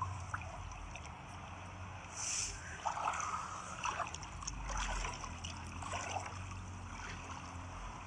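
Shallow seawater lapping and sloshing softly over a steady low rumble.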